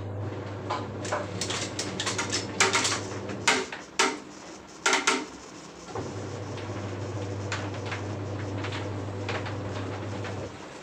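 Electric fan motor humming steadily, with a run of sharp clattering knocks in the first half. The hum stops for a couple of seconds partway through, then runs again until it cuts off near the end.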